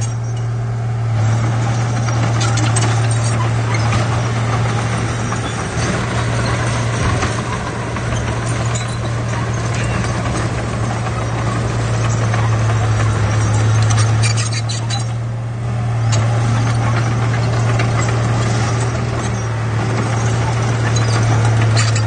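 Komatsu D31 crawler bulldozer working under load as it pushes soil and rock: the diesel engine runs with a steady low drone under continuous clattering from the machine.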